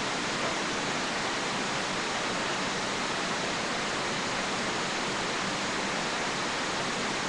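A steady, even hiss with nothing standing out of it.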